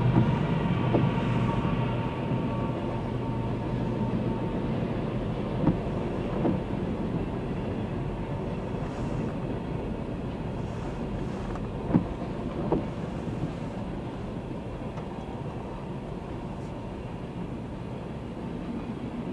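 Freight train of covered hopper and tank cars rolling past: a steady rumble of steel wheels on rail that slowly eases, with a few sharp clacks about six seconds in and again around twelve seconds.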